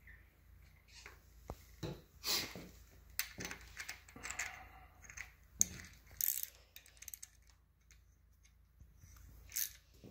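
Hand tools being handled on a workbench: scattered small metal clicks and clinks with brief rustling, as a ratchet and 7/16 12-point socket are fitted onto a thread tap in an engine-block thread-repair jig. The sharpest click comes a little past halfway.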